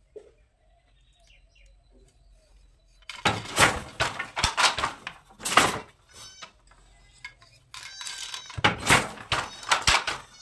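Wooden Jacquard handloom clattering in bursts of quick knocks as the weaver works it, the batten beating and the frame rattling. Quiet for about the first three seconds, then several clusters of knocks.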